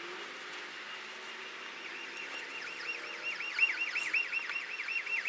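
Car alarm sounding, a fast, regular warble of short falling tones, about five a second, starting about two seconds in and growing louder.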